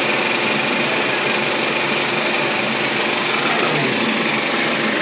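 70mm film projector running a print, with a steady mechanical rattle.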